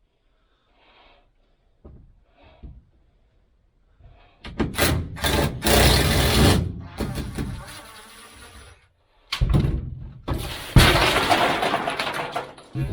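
The van's interior ceiling panel crashes down, with a long, loud clatter of falling debris and hoarded black walnuts and acorns; a second burst of crashing comes about two-thirds of the way through.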